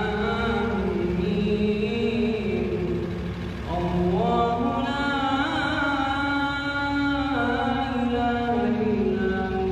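A man's unaccompanied voice reciting the Quran in a melodic, chanted style, holding long notes in drawn-out phrases. A new phrase starts at a higher pitch about four seconds in. A steady low rumble runs underneath.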